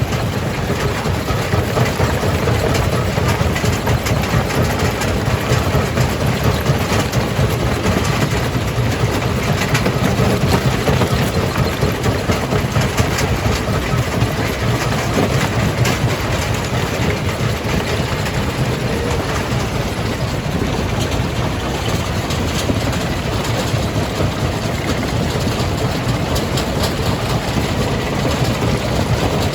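Jaw crusher running and crushing rock: a steady low machine drone under a dense, continuous clatter of stone.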